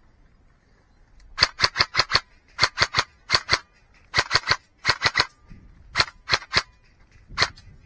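Airsoft gun firing repeated shots in short quick bursts, about twenty sharp cracks at roughly five a second, the last a single shot near the end.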